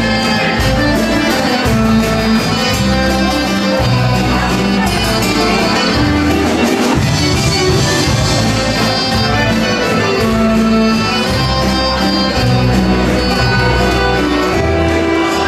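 Live band playing a sevdalinka, a Bosnian traditional song, with acoustic guitar among the instruments.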